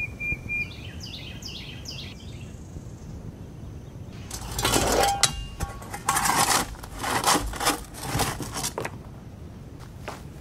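Footsteps crunching on loose gravel: slow steps about once a second starting some four seconds in, then quicker steps near the end.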